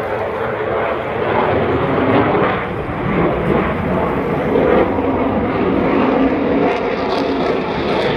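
Aircraft in flight, a loud, steady rushing engine noise that swells and eases slightly.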